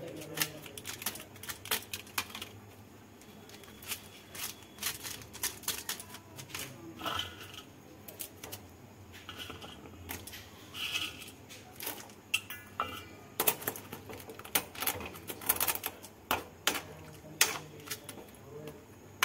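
A steel spoon clinking and scraping against a metal kadai as noodles are handled in the simmering liquid. The clicks come irregularly, some with a short metallic ring, and are thickest in the second half.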